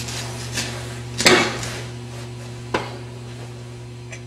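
A few sharp metallic clinks and knocks over a steady low hum, the loudest about a second in and another near three seconds, as metal is handled at a welding plate.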